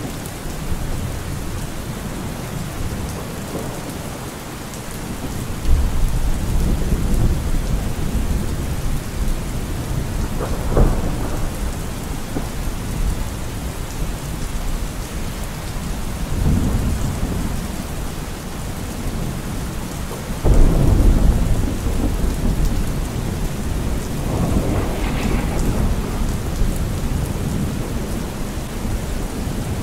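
Steady rain with thunder rumbling several times. Sudden loud claps come about six and twenty seconds in, and softer rolls come in between.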